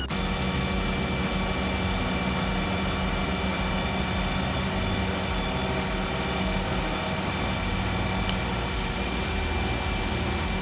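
Heavy machinery engine running steadily, a constant even hum with a few steady tones in it.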